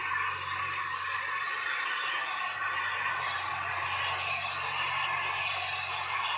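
Electric heat gun running steadily, its fan blowing an even rushing hiss with a low hum underneath, held against window tint film to shrink it onto the glass.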